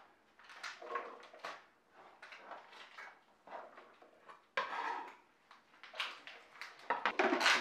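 Scattered clicks, knocks and scrapes of kitchen prep: string beans handled and dropped into a Cuisinart food processor's plastic bowl, a knife scraping across a plastic cutting board, and the processor's plastic lid being set in place near the end.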